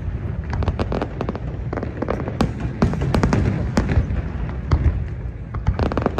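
Fireworks display: a continuous low rumble of booms with many sharp cracks and pops scattered throughout.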